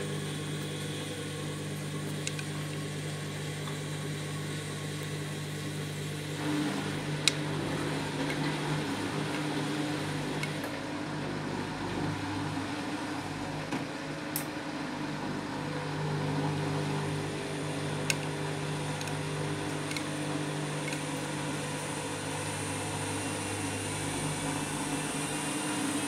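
Candy Grand'O Vita washing machine's drum motor running with a steady hum as the drum tumbles the wet load to distribute it evenly before the spin, with a few single sharp clicks.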